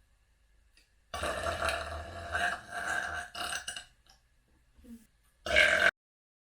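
A person burping: one long, drawn-out burp lasting about three seconds, then a short, louder burp near the end.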